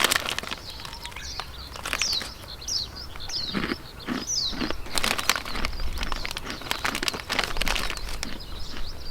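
Small bird calling: a run of short, high, downward-sliding chirps about two seconds in. Scattered sharp clicks and crackles sound in the second half.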